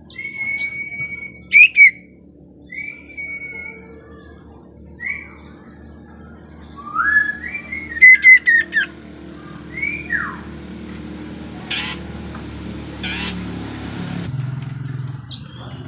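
Sirtu calling: a string of short, clear whistled notes, some held level and some sliding up or down, with a quick rattling run about halfway through. Two brief rushing noises come near the end.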